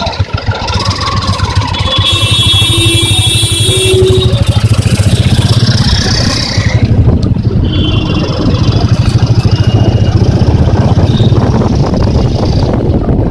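Busy city street traffic: vehicle engines keep up a loud, steady low rumble. High, steady horn tones sound from about two seconds in and again around eight seconds in.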